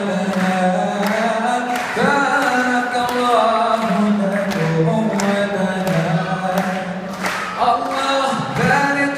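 Male vocalist singing a slow, held melody into a microphone over a PA system, with a steady beat of sharp hits about twice a second underneath.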